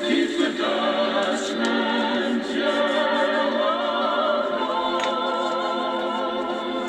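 Music from a radio, with held choir-like voices singing long sustained notes over the accompaniment. A couple of faint clicks sound about one and a half and five seconds in.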